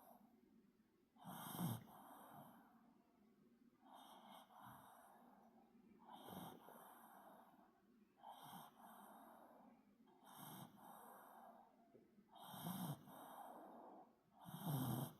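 Pomeranian dog snoring faintly in deep sleep, one snore about every two seconds, a few of them louder and deeper.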